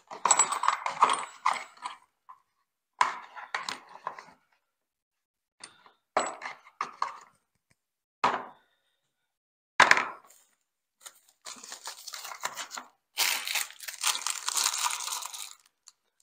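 Small metal plumbing fittings and washers clinking and rattling as they are moved between the removable plastic bins of a Milwaukee Packout organizer, in short separate bursts. For the last few seconds a plastic parts bag crinkles steadily as it is handled.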